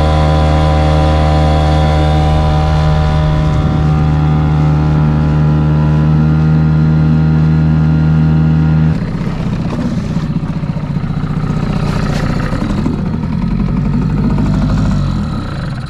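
Small petrol outboard motor pushing an inflatable dinghy, running at a steady high throttle. About nine seconds in it turns rougher and a little quieter with more water noise, and near the end its pitch falls as it winds down.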